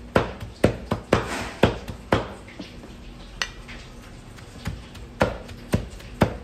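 A large knife chopping raw meat into mince by hand on a wooden stump block: sharp chops about twice a second, a pause of a few seconds in the middle, then the chops start again near the end.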